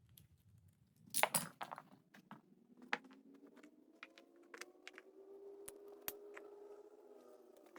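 Small clicks and clatter of plastic action-figure parts being handled while an O-ring is fitted, busiest about a second in. Under them a faint drone slowly rises and then falls in pitch.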